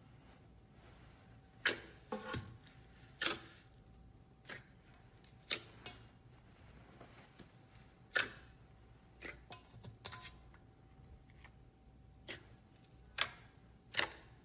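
Clear slime squeezed and pressed by hand in a stainless steel bowl, giving sharp, irregular pops and clicks roughly once a second.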